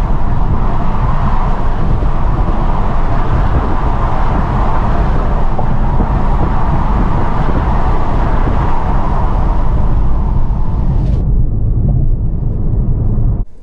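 Wind rush and road noise inside a 2023 Geely ICON's cabin at 80 km/h with the windows open, a loud, steady rumble with hiss. The hiss thins out sharply a couple of seconds before the end.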